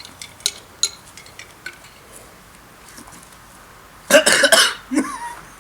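A few light clinks and taps of tableware, then about four seconds in a short loud cough-like burst from one of the eaters, followed by a brief vocal sound.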